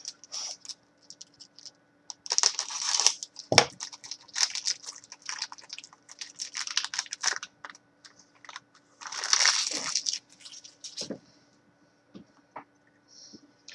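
Crinkling and tearing of a trading-card pack's wrapper as it is opened by hand, in irregular crackling bursts with short rustles between them. One sharp click comes about three and a half seconds in.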